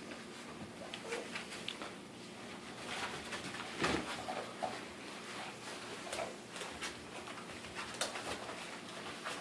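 Five-week-old pit bull puppies making small squeaky whimpers, among light scuffling and clicks, with one louder scuffle about four seconds in.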